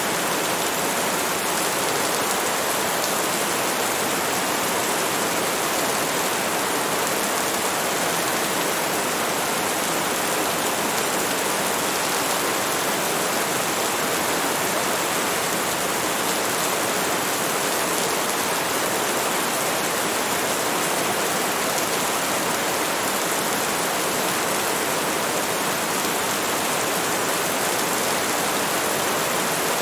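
Steady rainstorm: an even, unbroken hiss of heavy rain with no separate drops or thunder standing out.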